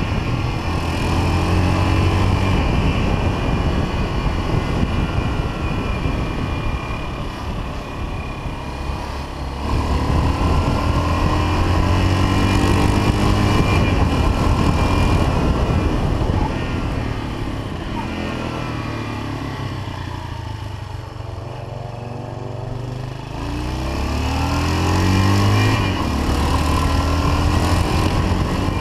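Yamaha XT 500's air-cooled single-cylinder four-stroke engine pulling the bike along a climbing road. The revs rise and drop repeatedly as it changes gear, climbing again in the last few seconds.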